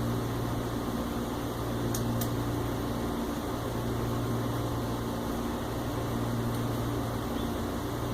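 Steady low machine hum, like a fan or air conditioner running, with a couple of faint small clicks about two seconds in.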